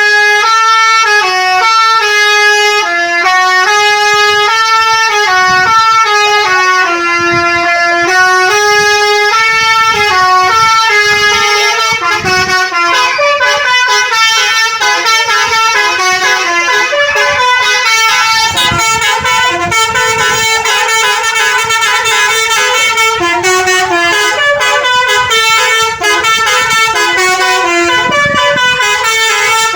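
Bus telolet horn (Basuri type) playing a melody of stepped, held notes over and over, loud. From about twelve seconds in the notes become denser and overlap.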